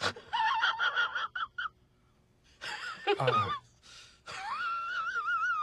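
A man's high, strained whimpering and gasping without words. Near the end comes one long, wavering, high-pitched whine.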